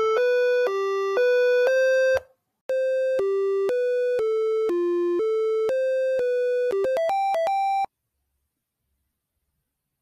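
Electronic intro jingle: a melody of single synthesized notes, about two a second, with a short break a little after two seconds in. It ends about eight seconds in with a quick rising run of short notes.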